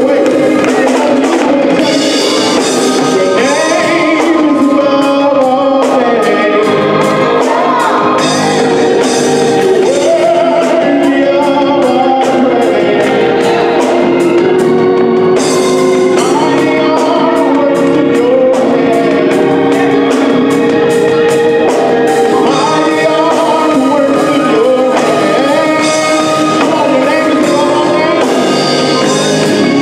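Gospel choir singing in harmony, backed by electric bass, a drum kit with a steady cymbal beat, and an organ.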